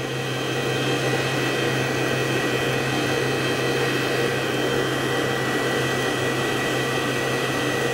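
Stand mixer running steadily at lowered speed, whipping egg, egg yolk and sugar, as melted white chocolate is poured in a little at a time. The motor gives an even hum with a faint high whine.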